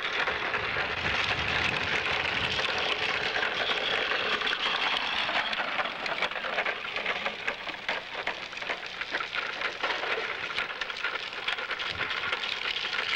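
Hard plastic wheels of a child's big-wheel tricycle rolling on concrete, a steady gritty rattle and rumble of many small clicks.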